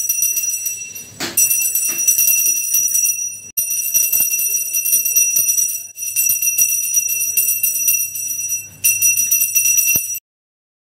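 Small pooja hand bell rung continuously with quick strokes, in several runs with short breaks, then stopping abruptly near the end.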